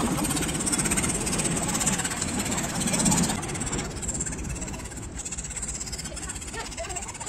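Scroll saw's fine blade reciprocating rapidly as it cuts a fretwork design out of thin wood: a fast, even rattle that gets quieter after about three seconds.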